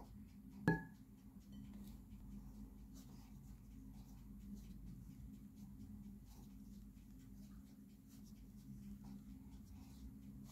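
Spatula folding flour into whipped egg whites in a glass bowl: faint soft scraping strokes, with one sharp clink on the glass bowl, ringing briefly, just under a second in. A low steady hum runs underneath.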